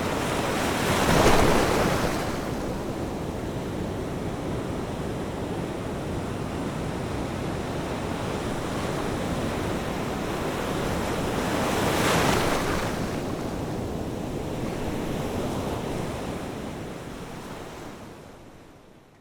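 Sea waves washing onto a shore, with two bigger waves breaking about a second in and about twelve seconds in, and wind on the microphone. The sound fades out near the end.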